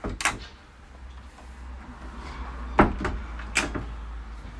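Yacht galley fridge freezer doors being pushed shut and latched: a couple of quick clicks just after the start, then a sharp clack about three seconds in and a second click just after. A low steady hum runs underneath.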